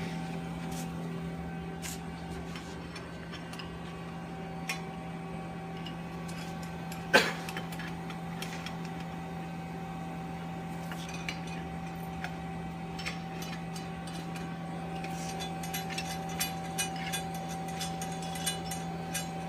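Light metallic clicks and clinks of hardware being handled during assembly, with one sharp clink about seven seconds in and a quicker run of small clicks near the end, over a steady low hum.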